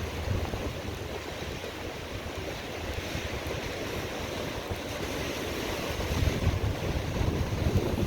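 Sea waves washing against the shore, a steady rush, with wind buffeting the microphone in low rumbles that grow stronger about six seconds in.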